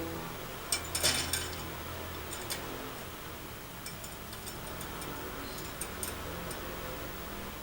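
Light clicks and taps: a quick cluster about a second in, then scattered single ticks, over a steady low hum.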